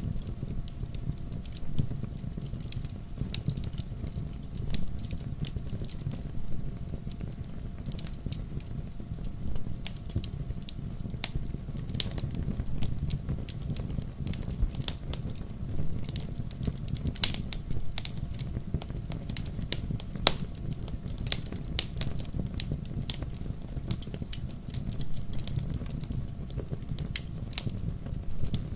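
Wood fire crackling and popping at irregular intervals over a low, steady rumble of burning.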